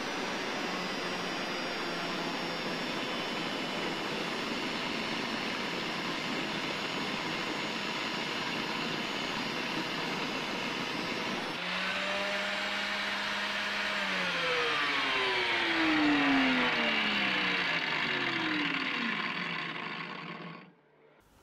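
Angle grinder with an abrasive disc cutting a facet into the blades of a Hastelloy X nickel-alloy turbine wheel blank, a loud steady grinding noise with the motor's whine underneath. The sound changes a little before halfway, then the motor's pitch falls steadily over several seconds before the noise stops abruptly near the end.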